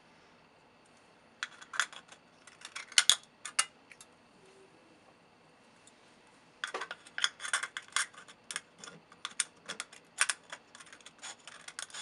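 Scissors snipping through the thin aluminium wall of a soda can: a run of sharp clicks and crunches from about a second and a half in, a short pause, then a longer run of snips from about six and a half seconds in.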